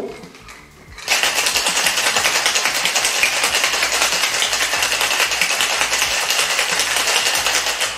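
Ice rattling in a two-piece stainless steel cocktail shaker given a hard shake. The fast, dense rattle starts about a second in and runs evenly until just before the end.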